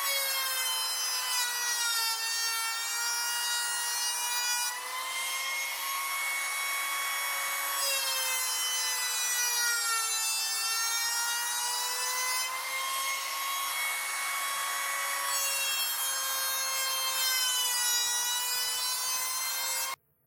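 Electric hand planer running under load, shaving a wide board: a steady high motor whine over the hiss of the cut. Its pitch sags and recovers several times as the load changes, and the sound stops suddenly near the end.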